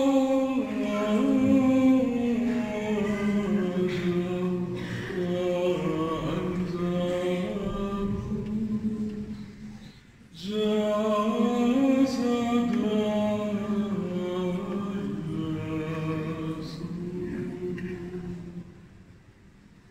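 Unaccompanied voices singing a liturgical chant: two long phrases, each starting high and stepping down in pitch, with a short break about halfway through.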